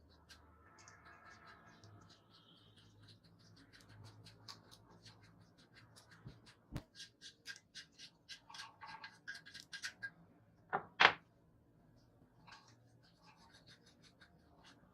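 Hand work on scooter parts: a run of short scratching strokes that comes quicker through the middle, then two sharp knocks close together, followed by a few light clicks.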